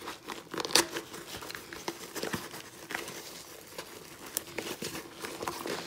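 Fabric rustling and scattered plastic clicks as hands work a plastic phone mount's tabs into the laser-cut slots of a fabric plate carrier. The sharpest clicks come about a second in and again past four seconds.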